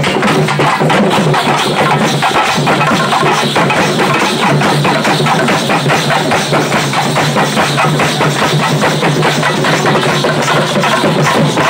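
Loud, fast drum-led music, the strikes coming several times a second over a steady low drone.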